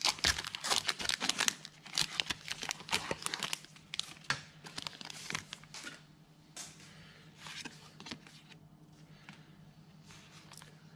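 Pokémon card booster pack wrapper being torn open and crinkled: dense crackling for about the first six seconds, then quieter scattered rustling as the cards come out.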